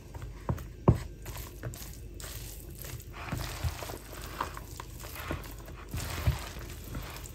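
Plastic spoon stirring a dressed pasta salad in a plastic bowl: irregular scrapes and soft taps of the spoon against the bowl, the loudest tap about a second in.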